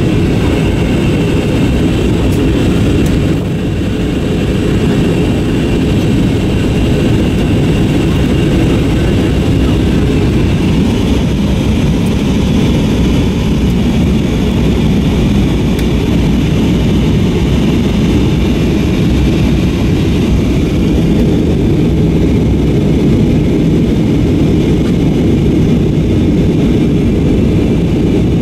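Steady cabin noise inside an Airbus A321-232 airliner in flight: a deep, even drone of airflow and its two IAE V2500 turbofan engines, with faint steady high tones above it.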